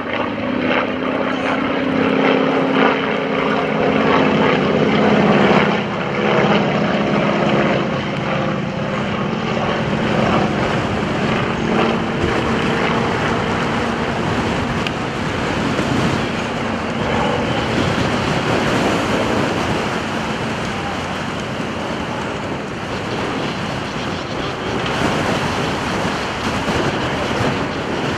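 Radial engines of two Stearman biplanes running as they pass in formation. The engine hum is loudest in the first several seconds, then fades into a steady rush of strong wind on the microphone.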